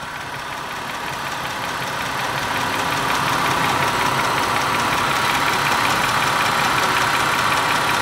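Car engine idling with the A/C running, and refrigerant hissing into the low side as the gauge manifold's valve is opened during recharging. The hiss swells over the first few seconds, then holds steady.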